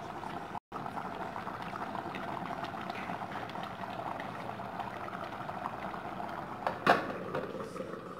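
Beef trotters simmering in sauce in a pot, a steady bubbling and crackling. About seven seconds in, a single sharp knock.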